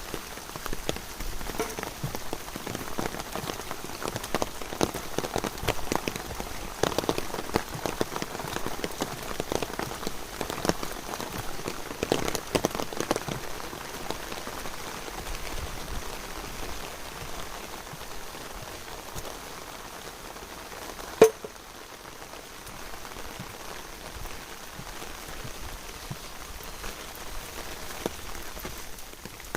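Rain falling, with many separate drops tapping close by, thicker in the first half. One single sharp tap stands out about 21 seconds in.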